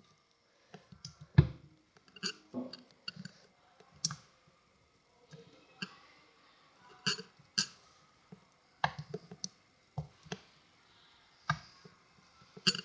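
Sticky homemade white-glue slime being squished and pulled, giving irregular wet clicks and small pops, the loudest about one and a half seconds in.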